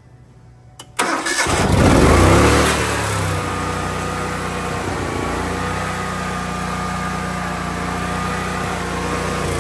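Generac 15,000-watt generator's gasoline engine on electric start, cranking briefly and catching about a second in, surging up, then settling into a steady run. It is a start after six months of storage on a little fresh gas, and it fires at once.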